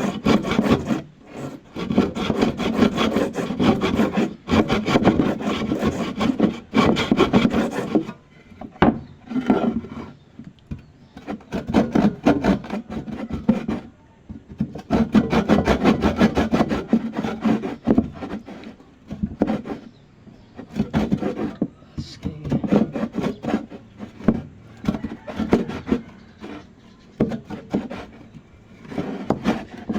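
Hand saw cutting through a workpiece with quick back-and-forth strokes, going in runs with brief pauses.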